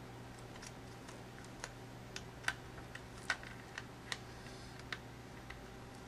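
About a dozen light, irregular plastic clicks and taps from fingers working at a Dell Inspiron 2650 laptop's keyboard while its cable plug is being fitted back into the connector, two sharper clicks near the middle, over a faint steady low hum.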